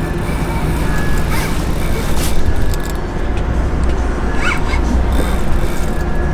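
Boat engine running with a steady low hum, under a noisy haze.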